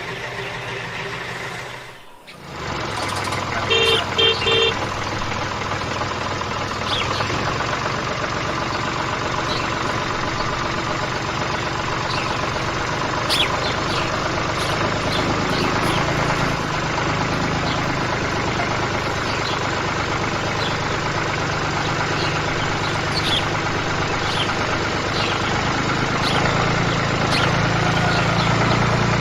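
Steady engine-like hum of a toy construction truck, with three quick beeps about four seconds in and scattered light clicks. The sound cuts out briefly about two seconds in.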